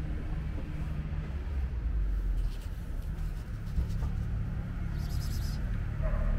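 Steady low rumble of street traffic, with a brief high-pitched sound about five seconds in.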